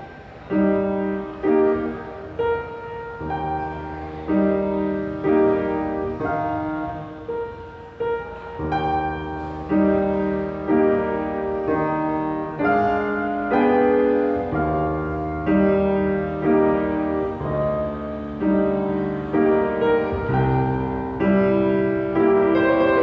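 Acoustic piano playing a nocturne: notes struck about twice a second and left to ring over one another.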